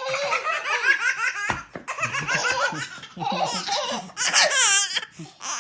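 A baby laughing in quick repeated bursts, rising to high-pitched squeals about four seconds in, with a brief low thump about one and a half seconds in.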